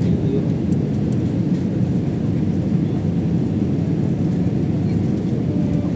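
Steady low rumble of an airliner's engines and airflow heard inside the passenger cabin during the descent for landing.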